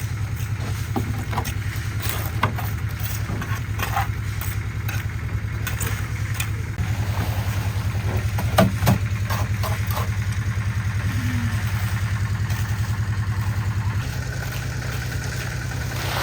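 Concrete mixer running steadily with an even low hum, with a few sharp knocks about two and a half seconds in and twice in quick succession near the middle.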